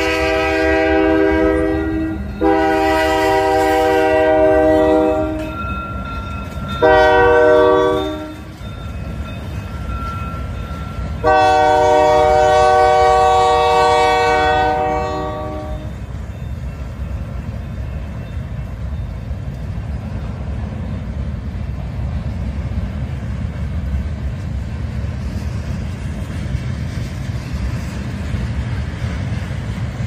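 Union Pacific GP60 diesel locomotive's horn sounding the grade-crossing signal: two long blasts, one short and one long. Then the steady rumble and clickety-clack of freight cars rolling past.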